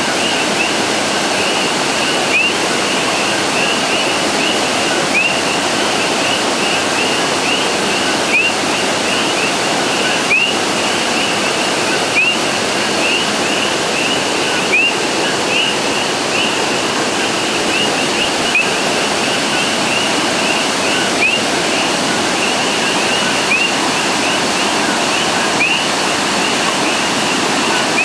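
Steady rush of a river running high with fresh rain water, with a chorus of coquí frogs giving many short rising chirps over it.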